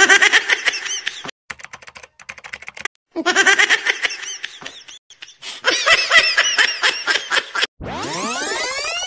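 Three bursts of high-pitched laughter with a quick run of clicks between the first two. Near the end, an electronic sound effect of many tones sweeps steadily upward.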